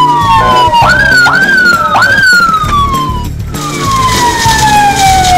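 Police siren whooping: several quick rises in pitch, each followed by a slower falling glide, the last one a long fall, over background music. A steady hiss of spraying water comes in about halfway.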